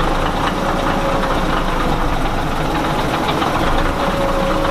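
Caterpillar 1693 inline-six diesel in a 1977 Peterbilt 359 semi idling steadily, running just after a jump start from a welding machine.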